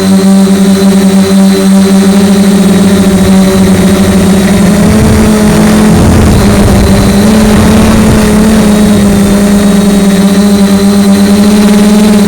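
DJI Flame Wheel F450 quadcopter's motors and propellers humming steadily in flight, heard close from the onboard camera, with a stretch of low wind rumble about five seconds in.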